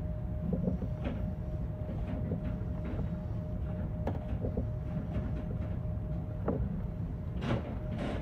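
JR West 321 series electric train heard from the cab end: a steady low rumble with a thin steady tone, and scattered clicks and knocks. Two sharper clicks come near the end.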